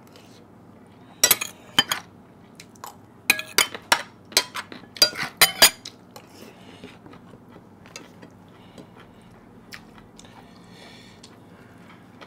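Metal utensils clinking and scraping against plates and bowls: a string of sharp clinks in the first six seconds, then only an occasional faint one.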